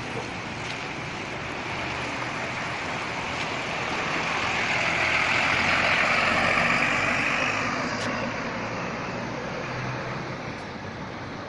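A bus driving past on the road: engine and tyre noise swell to a peak about six seconds in, then fade away.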